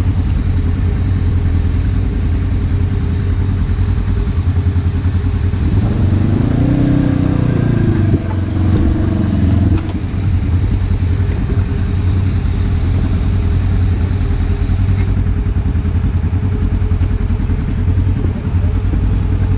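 Side-by-side UTV engine idling steadily. About six seconds in, an engine revs up and falls back over a few seconds.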